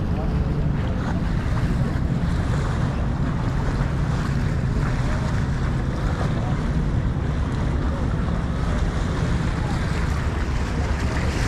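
Wind buffeting the camera's microphone: a steady low rumble with open-air ambience beside the water.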